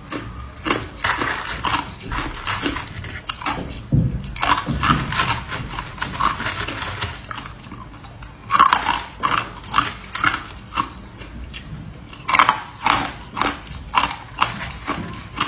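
Hard ice being bitten and chewed close to the microphone: clusters of sharp crunches, several a second, broken by short pauses as fresh pieces are taken.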